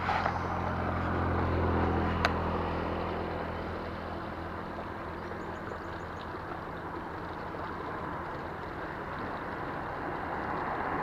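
A motor engine running at a steady pitch, loudest about two seconds in and then slowly fading, with one sharp click a little after two seconds.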